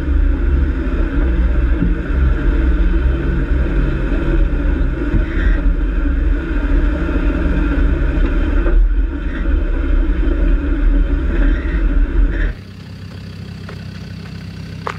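A 4x4's engine running as the vehicle drives up a rough, rocky dirt track, heard as a loud, steady low rumble. About twelve seconds in it cuts off abruptly to a quieter engine idling.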